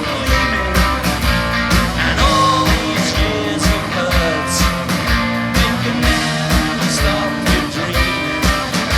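Live rock band playing, with drums keeping a steady beat under electric guitars.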